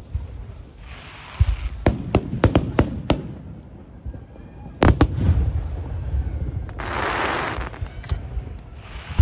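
Aerial firework shells bursting in a rapid run of sharp bangs and booms with a deep low rumble underneath, then a loud double bang and a second of hissing crackle.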